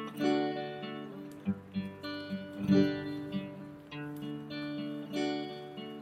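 Background music: an acoustic guitar playing a series of plucked notes and chords.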